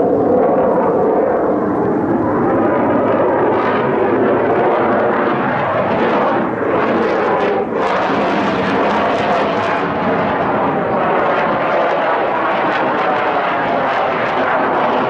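F-22 Raptor's twin F119 afterburning turbofan engines at high power through a climbing display manoeuvre: loud, continuous jet noise that dips briefly twice, about six and a half and seven and a half seconds in.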